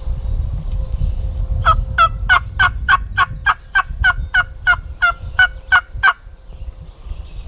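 A run of about fifteen sharp, evenly spaced turkey yelps, roughly three a second, lasting a little over four seconds, over low wind rumble.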